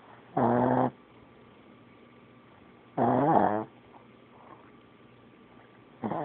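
A sleeping pet snoring: three loud snores about two and a half seconds apart, each lasting about half a second, the last one shorter.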